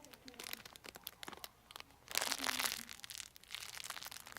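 Crinkling and crunching handling noise: a run of sharp crackles, with a louder, denser crunch about two seconds in that lasts under a second.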